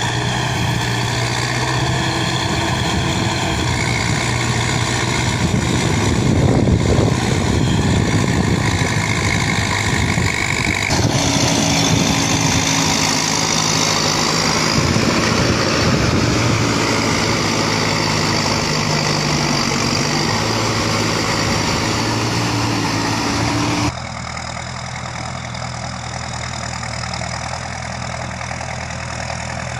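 Four-wheel-drive tractor engine running steadily under load while deep ploughing. The sound changes abruptly about 11 seconds in and again about 24 seconds in, where it becomes quieter.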